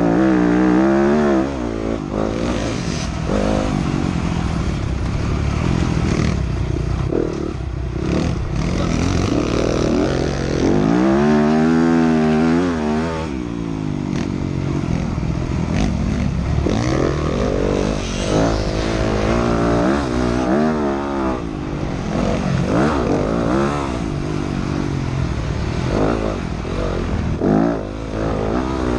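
Dirt bike engine under hard riding, its pitch rising and falling over and over as the rider opens and closes the throttle. About halfway through there is one long rev that climbs and then drops away.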